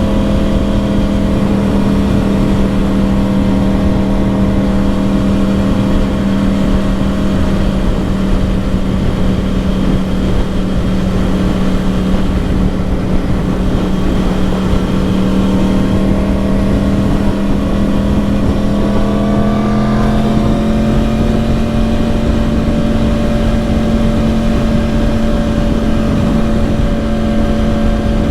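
2010 Yamaha R1's crossplane inline-four with dual Yoshimura exhausts running at a steady cruise, the engine note rising slightly and holding higher about two-thirds of the way through, with wind rush.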